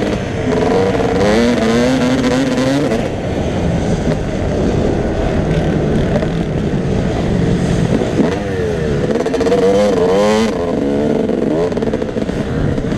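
Motocross bike engine being ridden hard on a dirt track, its revs rising and falling repeatedly as the throttle opens and closes, heard close from a helmet-mounted camera.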